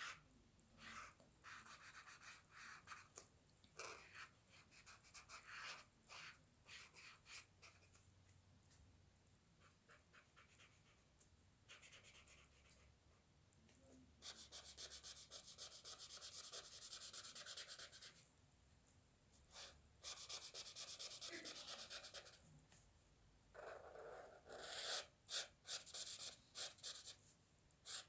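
Faint scratching of a drawing tool on its drawing surface: short strokes, then a few longer runs of rapid back-and-forth strokes like shading.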